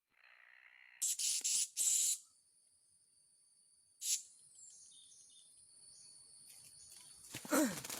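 Insects making a steady high-pitched buzz, with two loud, short rasping bursts about a second in and another around four seconds.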